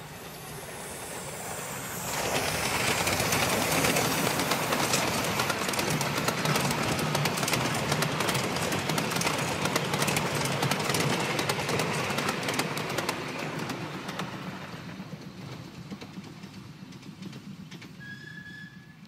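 Miniature-railway steam locomotive, a scale 'Merchant Navy'-class Pacific, passing close by with a train of passenger carriages. Its running noise builds and jumps up about two seconds in, followed by a long run of rapid wheel clicks as the carriages roll past, then fades away over the last few seconds.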